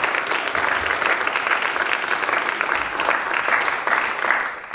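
Live audience applauding, a steady dense clatter of many hands clapping that starts to die away near the end.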